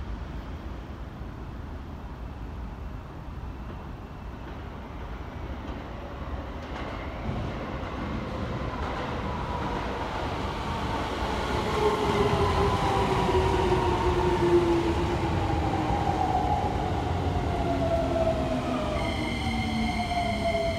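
Keikyu 1000-series stainless electric train pulling into the platform and braking: a rumble of wheels on rails growing louder as it comes in, with the traction motors' whine falling steadily in pitch as it slows. A high steady ringing tone comes in near the end.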